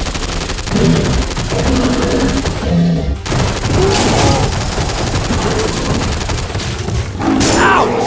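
Dubbed sound-effect machine-gun fire, a rapid continuous clatter of shots mixed with booms.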